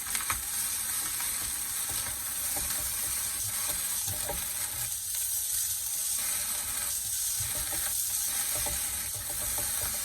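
Corned-beef fried rice with boiled egg sizzling in oil in a pan, a steady frying hiss with a few light scrapes of stirring.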